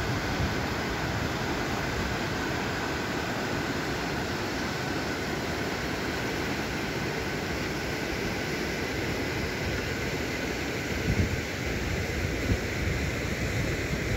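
Mountain river rushing in white water over rocks below: a steady, even rush of water.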